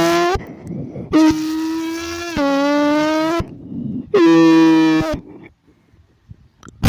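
Mouth-made tones against a speaker: three long, steady held notes at one pitch, the middle note stepping slightly lower about halfway through, with pauses between them and a short click near the end.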